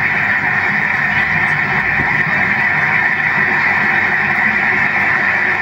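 Applause from a large audience, heard through a television speaker: a steady, unbroken clatter.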